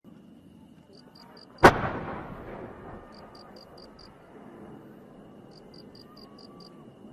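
A single loud boom of a fireworks shell fired from its mortar tube about a second and a half in, with a rumbling echo that dies away over a second or two. Crickets chirp in short trills around it.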